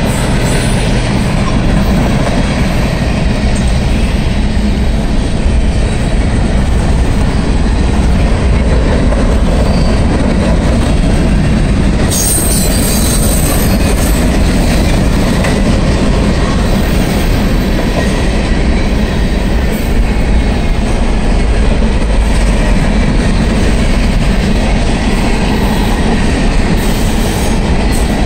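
Freight train of tank cars and covered hoppers rolling past close by: a loud, steady rumble and clatter of steel wheels on the rails.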